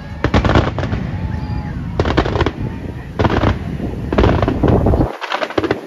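Aerial firework shells bursting in quick volleys: clusters of sharp cracks over a continuous low booming rumble. The rumble drops away about five seconds in while a last volley of cracks goes on.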